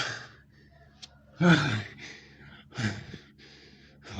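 A man breathing hard and groaning with effort during push-ups: loud, strained exhales about every one and a half seconds, some voiced and falling in pitch, like sighs.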